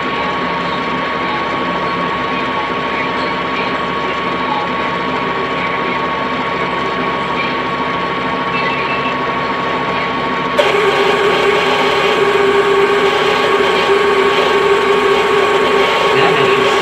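Funai VCR's tape mechanism running steadily with a thin whine, rewinding a tape; about ten seconds in it gets louder with a stronger hum added, as the tape nears its beginning.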